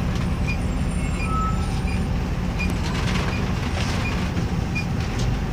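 Bus engine running with a steady low rumble, heard from inside the cabin while the bus drives on a wet road. Faint short high beeps come every half second or so.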